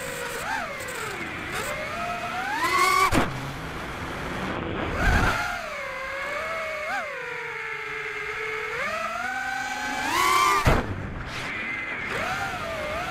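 FPV quadcopter's brushless motors spinning 5-inch three-blade 5x4.8x3 propellers, a whine whose pitch rises and falls continuously with the throttle, with a few brief louder surges along the way.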